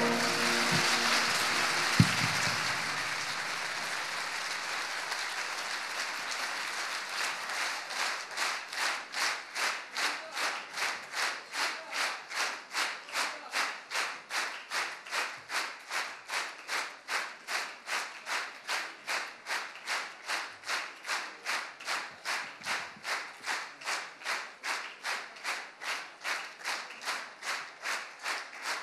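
Audience applause as the music stops, settling after a few seconds into rhythmic clapping in unison at about two and a half claps a second. A single sharp knock sounds about two seconds in.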